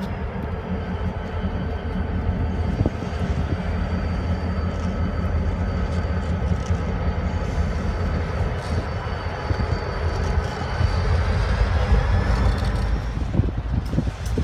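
Burlington Northern diesel-electric locomotives passing with a freight train: a steady engine drone with a faint high whine over it, growing a little louder as they go by.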